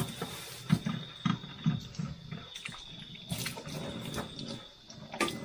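Tap water running into a stainless steel sink while hands wash catfish under it, with repeated short knocks and splashes as the fish are handled.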